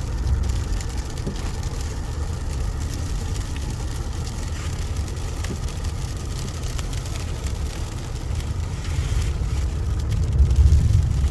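Car driving on a snow-covered road, heard from inside the cabin: a steady low rumble of engine and tyres that swells near the end.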